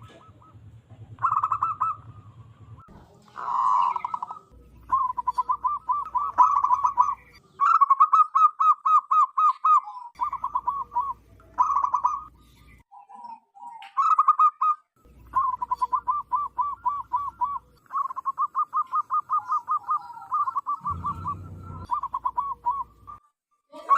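Zebra dove (perkutut) cooing loudly: a string of phrases of quick, rippling notes, each phrase one to a few seconds long, with short pauses between them.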